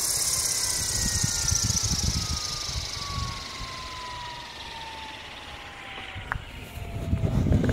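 SAB Goblin 500 electric RC helicopter spinning down after landing: the brushless motor and main rotor give a whine that falls steadily in pitch, with the rotor's rushing hiss fading as the blades slow. A few low rumbles come in near the end.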